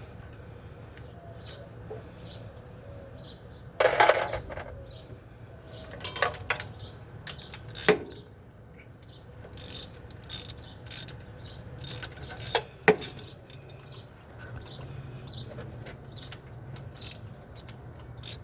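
Irregular metallic clicks and knocks of hand tools and valve-train parts being handled while working on an engine's valve springs, a loud knock about four seconds in and a run of clicks in the middle; faint bird chirps in the background.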